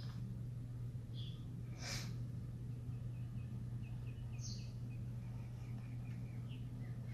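Steady low hum of room noise, with a few soft swishes as an oil-paint brush works on the palette and canvas, the strongest about two seconds in. A run of faint short high chirps repeats quickly in the background from about three seconds on.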